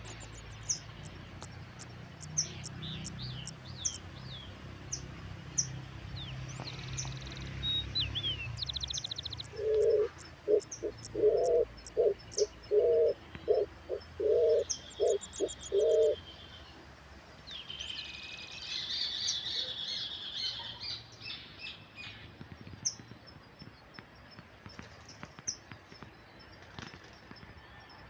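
Small birds chirping and trilling throughout, and midway a pigeon cooing in a run of about nine short, evenly spaced low coos. A low rumble sits underneath and fades about a third of the way in.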